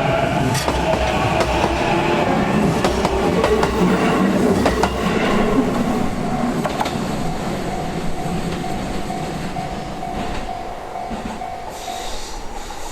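Electric train running past on the Ome Line, its wheels clicking over the rail joints, the rumble fading as it moves away.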